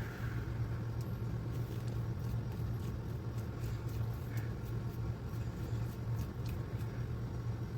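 A steady low hum, with faint scattered small clicks and ticks over it.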